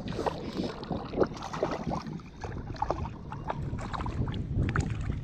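Water splashing and sloshing close by as a hooked brook trout thrashes near the surface, in a run of short irregular splashes. A low wind rumble on the microphone runs underneath.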